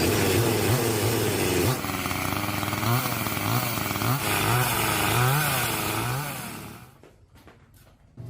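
Stihl 08S two-stroke chainsaw engine running, its pitch rising and falling with repeated throttle blips, then fading out near the end.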